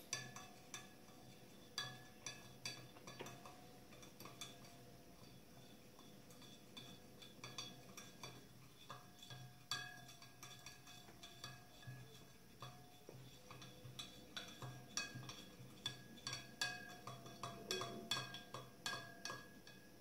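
A plastic spoon stirring water in a glass beaker, tapping the glass in faint, irregular clinks that ring briefly; the clinks come more often over the last few seconds. Baking soda is being stirred in to dissolve.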